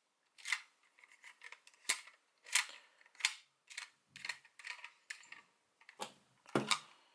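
Hard plastic toy parts clicking and snapping as they are handled: about a dozen sharp, separate clicks at uneven intervals, a couple of them with a duller knock.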